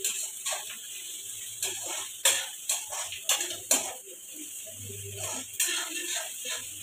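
A steel spatula scraping and clinking against a steel kadai as chopped onions are stirred, in about a dozen irregular sharp strokes.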